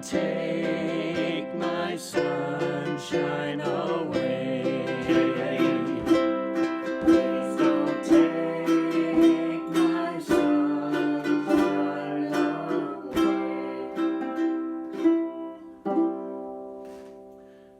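Ukulele strummed in chords, with a last chord struck near the end and left to ring and fade away.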